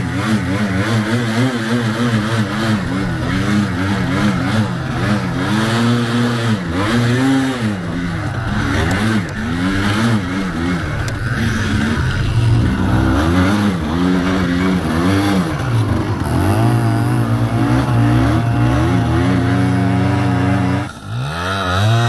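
Single-cylinder two-stroke engine of a Yamaha Blaster quad running under load on a snowy track, heard close from the rider's seat. Its pitch rises and falls over and over as the throttle is worked. There is a short dip and change in the sound near the end.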